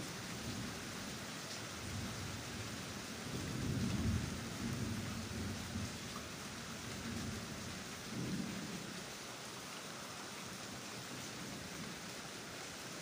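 Steady rain hiss, with swells of low rumbling about four seconds in and again near eight seconds.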